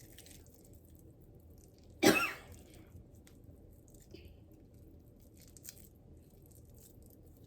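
A single short cough about two seconds in, over faint background with a few small clicks.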